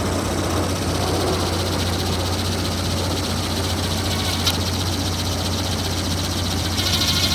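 Electric drill running steadily, spinning a drill-mounted wire stripper that cuts the insulation off 8-gauge stranded wire. A single sharp tick about four and a half seconds in; the running gets louder near the end.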